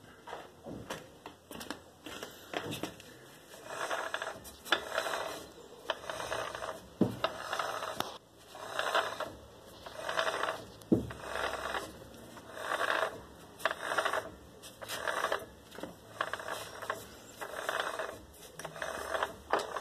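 Mechanical noise from a TL4 manual gearbox casing, swelling and fading about once a second, with scattered sharp clicks. The owner locates it in the gearbox rather than the intermediate shaft bearing and questions whether it is normal.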